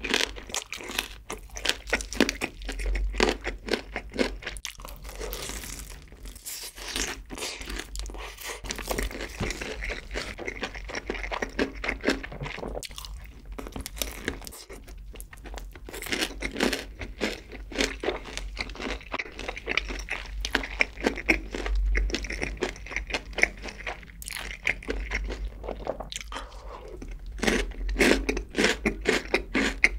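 Close-up crunching and chewing of sauced fried chicken: the crisp coating crackles as the meat is bitten and pulled from the drumstick bone. The crunches come thick and irregular, heaviest near the start and near the end.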